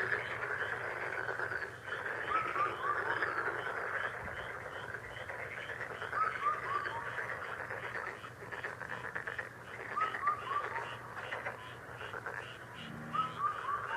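Frog chorus: a dense, continuous calling with a repeated call of three or four quick falling notes every few seconds, and a short lower croak near the end.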